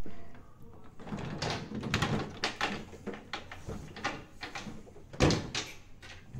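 A white cabinet's door and shelf being handled: a run of knocks and rattles, with a louder knock about five seconds in.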